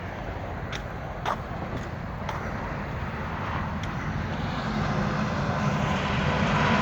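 Vehicle traffic heard from a distance, a steady rush that grows louder through the second half as a vehicle draws nearer, with a low hum coming in near the end. A few light clicks sound over it in the first few seconds.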